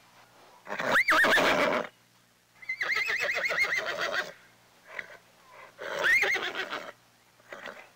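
Horse whinnying three times, each call with a quavering, rapidly wavering pitch, the middle one the longest.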